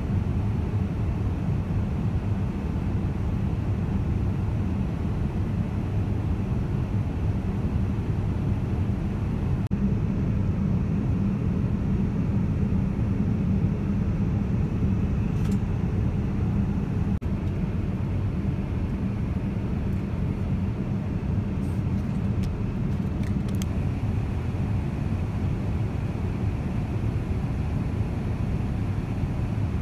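Steady low rumble of a Boeing 787-9's cabin in cruise, the engine and airflow noise heard from a seat inside. A few faint clicks come partway through.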